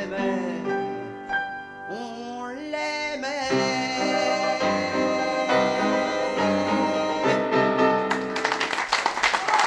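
A woman sings the closing line of a French chanson over piano accompaniment, her voice wavering in vibrato about three seconds in. The song ends on piano chords. Audience applause breaks out about eight seconds in.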